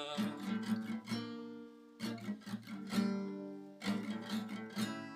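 Acoustic guitar played alone between sung lines: three groups of strummed chords, each left to ring out.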